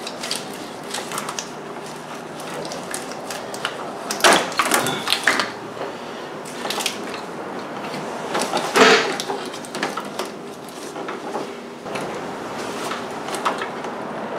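Hands working the wiring harness and its plastic connectors on top of an engine: scattered clicks and rattles, with louder clatter about four seconds in and again near nine seconds, over a faint steady hum.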